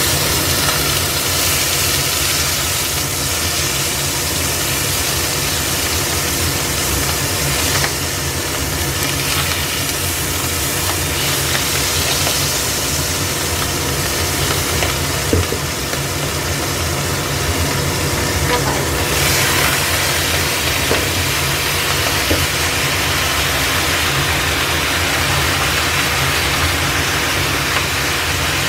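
Garlic and fermented bean curd sizzling steadily in hot oil in a stainless steel pan, over a steady low machine hum. About two-thirds of the way through the sizzle grows louder and brighter as lettuce goes in to stir-fry.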